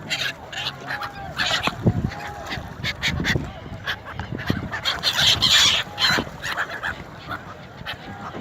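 A flock of migratory gulls calling, many short, harsh cries overlapping one another.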